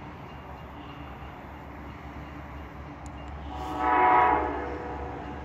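Locomotive horn of an approaching train sounding one blast of about a second, roughly three and a half seconds in, over a steady low background rumble.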